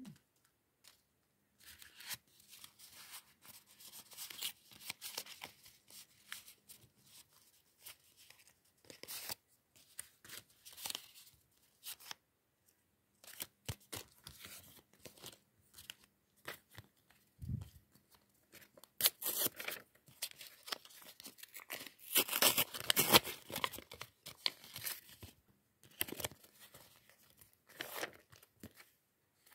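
Paper being handled, rustled and torn open by hand, as homemade paper surprise packets are unwrapped, in irregular bursts of crackling and tearing, loudest about two-thirds of the way in.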